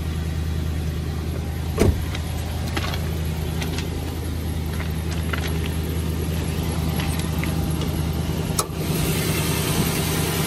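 Nissan Titan pickup's V8 engine idling steadily, with a sharp clunk about two seconds in and a thump near the end as the hood is released and opened.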